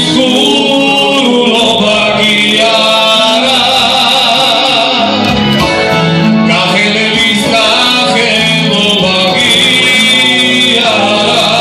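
Men singing into microphones, holding long notes, over electronic keyboard accompaniment, all amplified through a PA.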